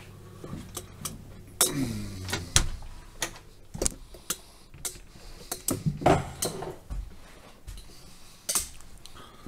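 Irregular sharp clicks and knocks of footsteps and handling, with a short creaking sound as a door is opened and someone steps inside.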